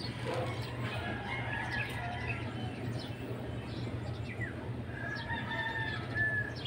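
Birds calling: scattered short chirps and pitch glides, then one drawn-out call about five seconds in. A steady low hum runs underneath.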